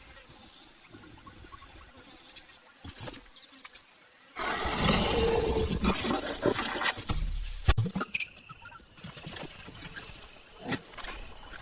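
Insects chirring steadily in a high, pulsing tone. About four seconds in, a louder rough sound rises for about three seconds, and a sharp click follows.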